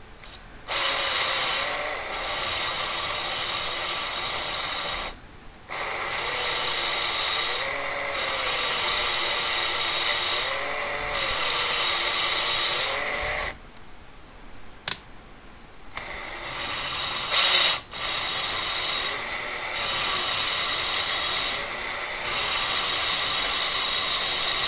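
A valve being lapped into its seat in a VW 2-litre air-cooled cylinder head with coarse grinding paste. The lapping tool runs with a steady mechanical whir and grind and cuts out briefly a few times.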